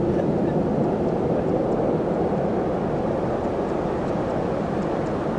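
Steady rumbling roar of ocean surf breaking, from a big typhoon swell.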